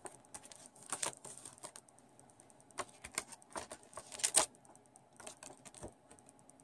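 Paper rustling and crackling as a folded instruction leaflet is opened out and handled, in irregular crisp crackles, the loudest about four seconds in.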